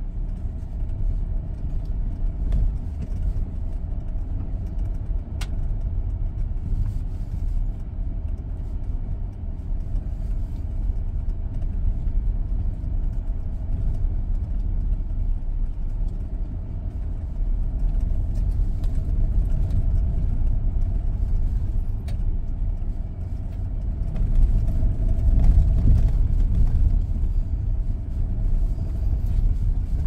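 Rexton Sports pickup driving off-road: a steady low rumble that grows louder for a moment near the end.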